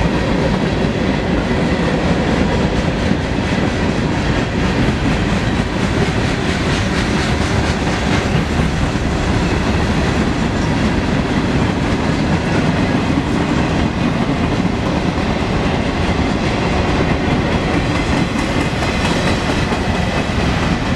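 Freight train cars (boxcars and centerbeam flatcars) rolling past: the steady noise of steel wheels on the rails, with repeated wheel clicks.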